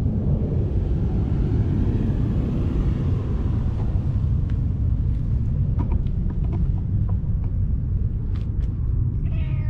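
Steady low rumble of wind buffeting the camera's microphone, with a few faint clicks; in the last moment a cat gives a short meow.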